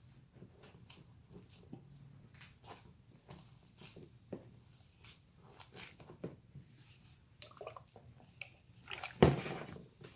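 Foam slime (glue packed with foam beads, just activated with borax) being mixed and squeezed by hand: irregular sticky squishes and small crackles, with one louder burst about nine seconds in.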